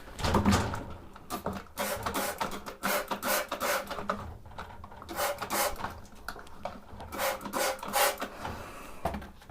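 A stiff brush scrubbing solvent into the grimy metal parts of a vintage sewing machine, in short irregular strokes.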